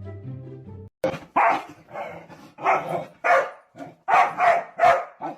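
A dog barking repeatedly, about nine short barks, starting about a second in after background music cuts off.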